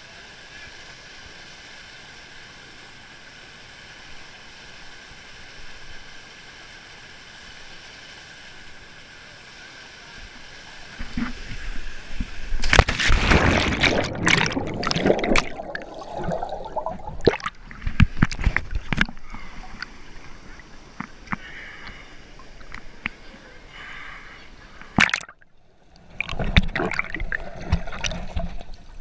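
Steady rush of water, then from about halfway loud, irregular splashing and sloshing of water close to the microphone, with gurgling, broken by a brief drop-out near the end.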